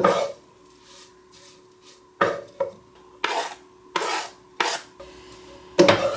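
A utensil scraping and stirring food in a pan, in several separate short strokes.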